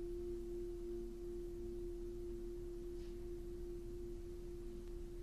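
Background score: a single steady held note, a pure-sounding drone over a faint low hum.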